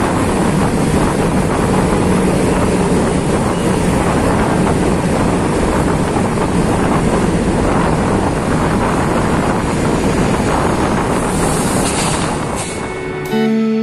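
Honda PCX 150 scooter ridden at about 40 km/h: steady wind rush on the microphone over the single-cylinder engine and tyre noise. Music starts near the end.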